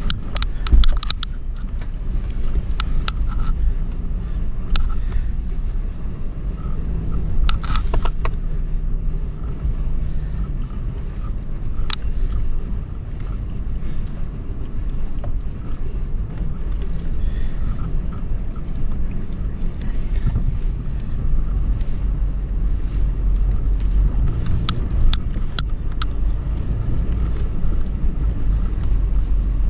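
2013 Toyota 4Runner's 4.0-litre V6 running steadily as the SUV drives over sand dunes, a constant low rumble with scattered clicks and knocks.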